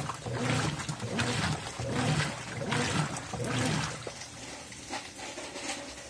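Consul 13 kg top-load washing machine agitating: the motor hums and the water sloshes in regular back-and-forth strokes, roughly one every three-quarters of a second. The strokes die away about four seconds in as the agitation stops.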